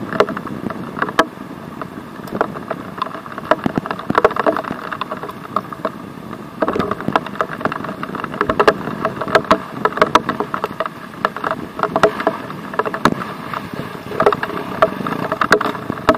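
Dirt bike engine running along a rough trail, picked up by an onboard camera, with frequent sharp knocks and rattles from the bike over the ground.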